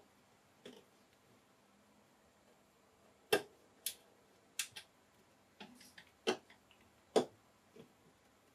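Sparse, irregular sharp clicks and taps of a screwdriver and screws against the metal case of a computer power supply as its bottom screws are taken out.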